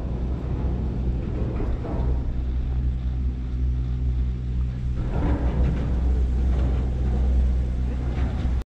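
Vehicle engine running with a steady low drone. The sound cuts off abruptly near the end.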